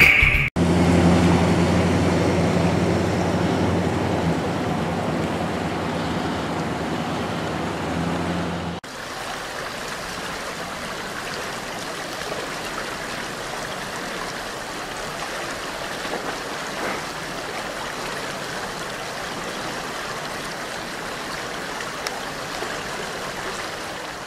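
Shallow creek running: a steady rush of water, louder and with a low hum under it for the first eight seconds or so, then cutting suddenly to a quieter, even flow.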